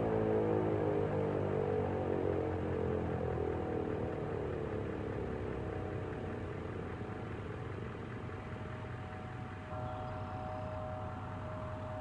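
American Signal T-128 rotating electromechanical outdoor warning siren winding down at the end of its test: its tone falls steadily in pitch and fades over about six seconds. A faint steady tone comes in about ten seconds in.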